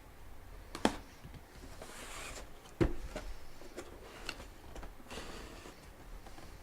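Handling of packaging and a hard plastic graded comic slab: a few sharp clicks and knocks, the loudest a low thump about three seconds in, with short bursts of rustling in between.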